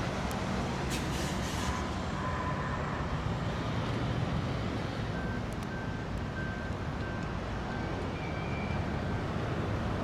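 Steady road traffic noise from passing cars and trucks. A faint, high beeping repeats about twice a second for a few seconds midway.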